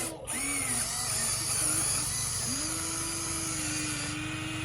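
Electric motors of a Huina radio-controlled model excavator whining: the pitch wavers up and down as the controls are worked, then holds steady from about halfway through.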